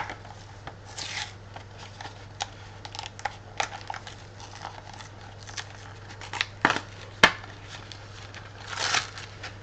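Plastic pack packaging and trading cards being handled and opened by hand: scattered crinkles, clicks and scrapes, with the sharpest clicks about a second in and again past the seven-second mark, over a faint steady low hum.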